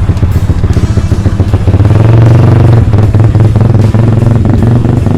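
Background music over a loud low rumble that swells about two seconds in.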